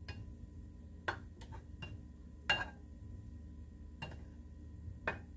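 A plastic spoon knocks and scrapes against a ceramic dish as carrots are stirred, giving a handful of light clicks, the loudest about two and a half seconds in, over a low steady hum.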